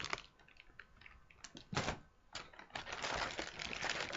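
Plastic model kit parts being handled in their box: light clicks and ticks of plastic sprues, a sharper rattle about two seconds in, then steady crinkling of plastic parts bags.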